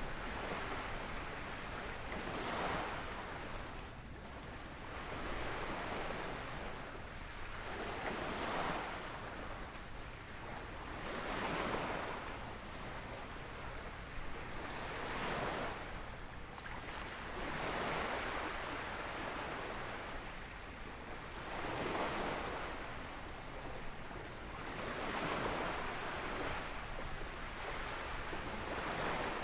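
Small waves washing onto a beach, each one swelling and falling away every few seconds.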